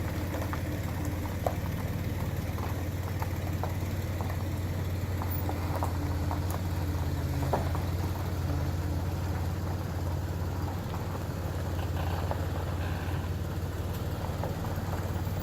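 Boat engine idling steadily with a low, even hum, and scattered faint ticks over it.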